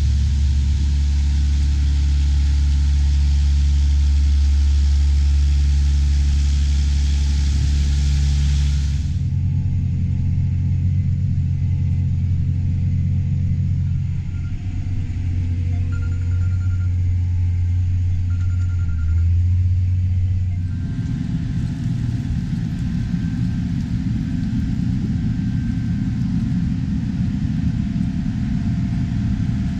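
Heavy farm harvest machinery engine running steadily with a low drone. The sound changes abruptly twice, about a third and about two-thirds of the way through, ending as a rougher low rumble.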